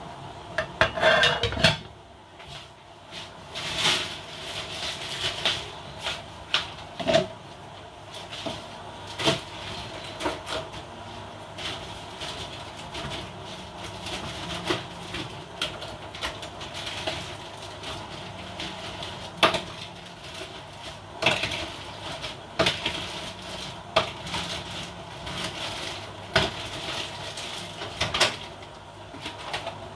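Kitchen clatter: a metal lid is set onto a large cooking pot with a loud clanking cluster about a second in, followed by scattered short clicks and knocks over a faint steady hum.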